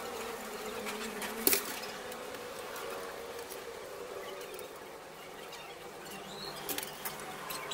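Aluminium rods and plastic clamps of a Yagi TV antenna knocking and clicking as it is handled on a wooden table: one sharp knock about a second and a half in, a few lighter clicks near the end, over a steady faint hum.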